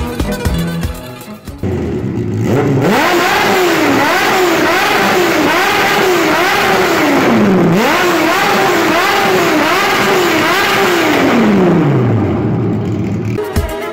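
Kawasaki ZX-9R sportbike's inline-four engine being revved hard in repeated quick throttle blips. Each sharp rise in pitch falls straight back, about two a second, and near the end the revs drop slowly back to idle.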